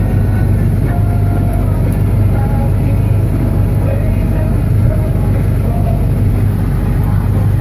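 Engine running steadily at constant speed, a loud, even low drone.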